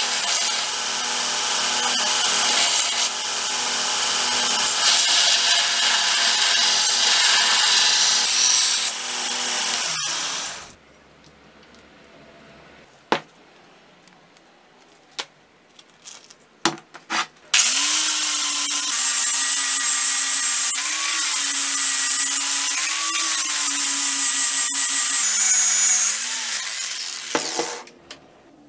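A belt grinder grinds a steel axe head for about ten seconds, a steady loud rasp, then stops. A few seconds of quiet follow, with scattered clicks and knocks. Then a handheld power tool with an abrasive sanding disc runs for about ten seconds, its motor pitch dipping and recovering as it is pressed against the metal.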